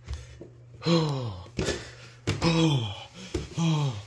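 A man's voice giving short grunts of effort, three of them about a second and a half apart, each falling in pitch, with soft taps of a plush toy set down on wooden stairs between them.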